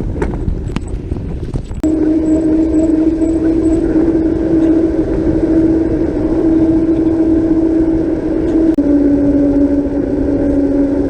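A motor vehicle engine running at a steady speed, a steady hum that drops slightly in pitch about nine seconds in. Before the hum sets in there are a couple of seconds of rougher noise with clicks.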